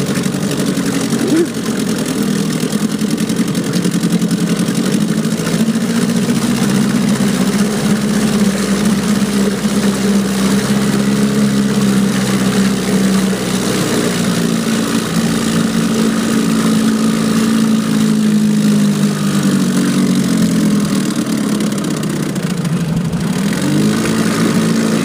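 1972 Evinrude 4 hp Lightwin two-stroke twin-cylinder outboard running steadily in a test tank, on its first run in a couple of years. The engine speed sags a little about twenty seconds in, then picks up again near the end.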